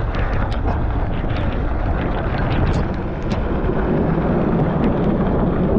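Rain and wind buffeting the microphone, a steady rumbling noise with scattered sharp taps.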